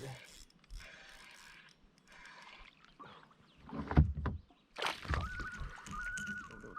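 Water sloshing and splashing around a kayak, with a heavy hollow thump about four seconds in. A steady high tone carries on through the last couple of seconds.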